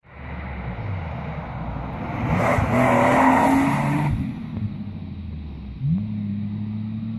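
Rally car passing at speed, its engine note shifting in pitch, loudest about three seconds in with a rush of tyre and wind noise. Near the end an engine note rises quickly and then holds steady.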